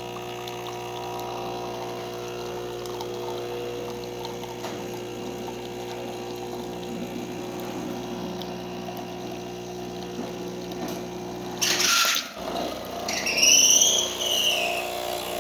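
Breville 980XL espresso machine's pump humming steadily while the shot pours. About twelve seconds in it cuts off with a short loud hiss. Two high squeals that rise and fall follow, then a steady hum at a different pitch as the machine switches over, with the hot water function starting.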